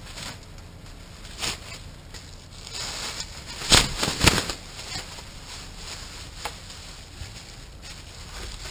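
Plastic trash bag rustling and crinkling as it is shaken open and spread out by hand, with two loud swishes about four seconds in.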